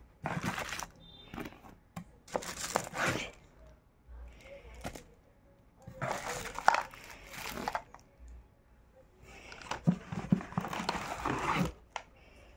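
Clear plastic packaging bags crinkling in repeated bursts of a second or two as the wrapped parts of an egg boiler are handled and lifted out of a cardboard box.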